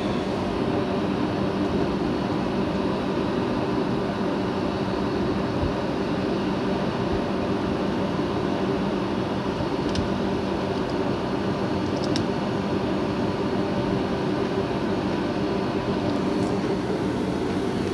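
Steady mechanical hum from a running machine, unchanging throughout, with a couple of faint ticks about ten and twelve seconds in.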